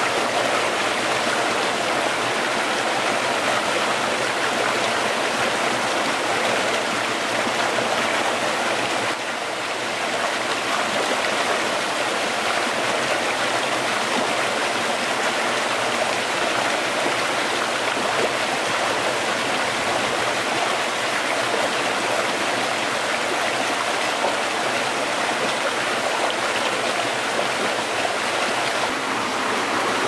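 Stream flowing: a steady, even rush of running water.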